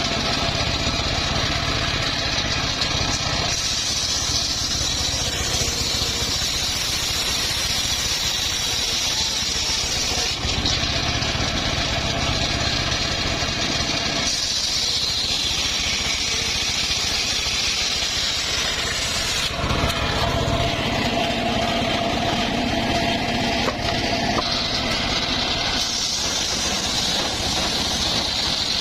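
Circular saw running steadily while cutting wood, its tone shifting abruptly several times.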